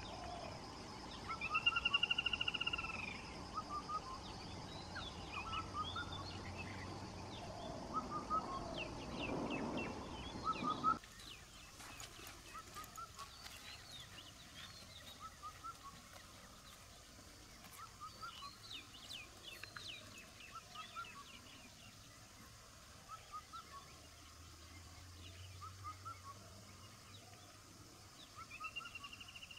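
Wild birds calling: many short chirps throughout, with a longer arching call about two seconds in and again near the end. A low background noise under them stops abruptly about eleven seconds in, leaving the birds fainter.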